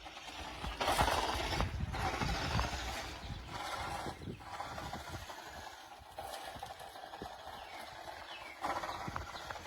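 Toy RC monster truck driving over rough ground: its small electric drive and tyres running with crackling and rattling, getting louder in surges about a second in and near the end.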